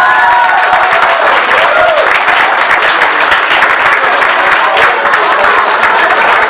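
A room of people applauding, with a few voices mixed in. The choir's last sung note ends just as the clapping takes over.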